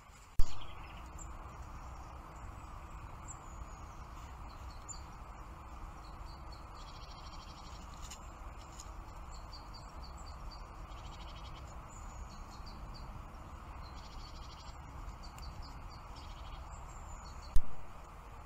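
Outdoor background of steady hiss and low rumble, with short high bird chirps and several quick trills scattered throughout. A sharp loud click just after the start and another near the end mark where trail-camera clips begin.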